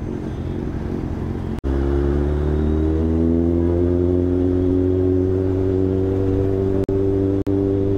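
Four-cylinder sport motorcycle engine running at low revs, then louder as it pulls on the throttle, its pitch rising slowly and then holding steady while riding, with two very short breaks near the end.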